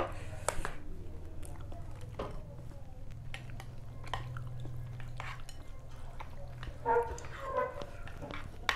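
Wooden chopsticks and a metal spoon clinking and scraping against a bowl as noodles in broth are stirred, a scatter of small taps over a low steady hum. A short vocal sound comes about seven seconds in.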